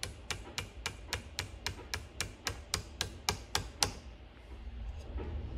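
Small hammer lightly tapping a pin punch at an even pace, about three to four taps a second, to drive out a pin in a Crescent Model 60 shotgun's lock work. The taps stop about four seconds in.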